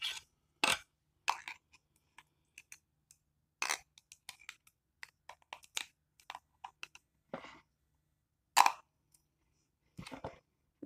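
Close-up chewing with small mouth clicks, and a metal knife clicking against the inside of a glass jar while pepper slices are fished out: scattered short ticks, with a few louder ones.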